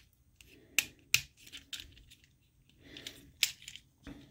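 Plastic parts of a Studio Series Ratchet action figure being handled and pushed together as its pegs are worked into their slots: soft rubbing and a few sharp clicks, two just around a second in and another about three and a half seconds in.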